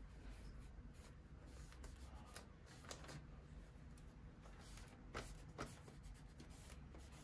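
Near silence with a few faint, short rubbing and rustling sounds of paper being handled and pressed on a journal page, the clearest two about five seconds in.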